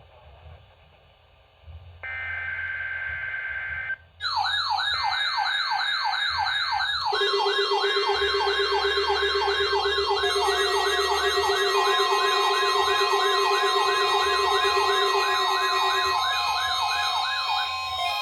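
A short burst of SAME digital header tones from a NOAA Weather Radio test broadcast, then the La Crosse W85947 weather radio's electronic alert siren sounding. The siren is a rapidly repeating pitch sweep, with steady alert tones layered under it. The siren cuts off near the end.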